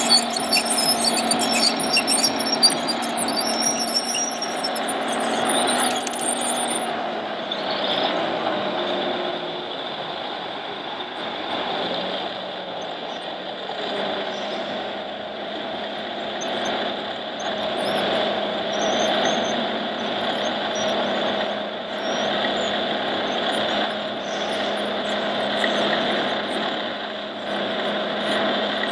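RC model trucks and construction machines running: a steady whine of small motors and gears, with high wavering squeals through the first several seconds.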